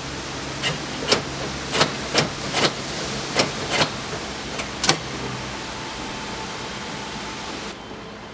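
Newly fitted interior door handle on a 1997 Chevy Tahoe being worked: about eight sharp plastic-and-latch clicks over four seconds, over a steady hum.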